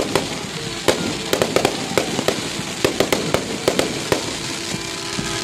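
Fireworks going off, a rapid irregular run of sharp bangs and crackles, several a second.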